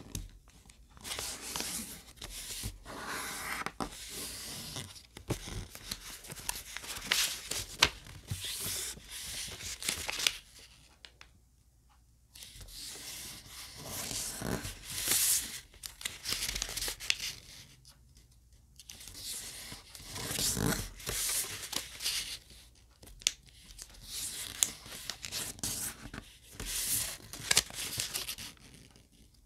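Colored origami paper rustling and crinkling as it is folded and creased by hand, in irregular bursts with a couple of short pauses.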